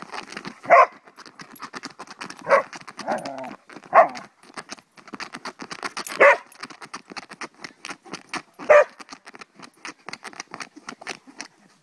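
A Goldendoodle pawing and biting at a plastic frisbee: a steady patter of clicks and scrapes from teeth and claws on the plastic. Five short, loud barks or yips are spread through it.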